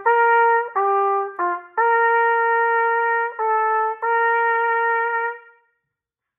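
Solo trumpet playing a short march-rhythm phrase from an etude: a string of separate mid-range notes, two of them held long, the last held note fading out about five and a half seconds in.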